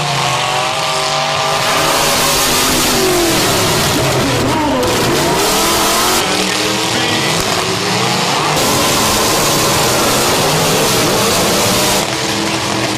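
Several demolition derby cars' engines revving hard at once, their pitches rising and falling over one another, with a dense hiss. The sound changes abruptly a few times.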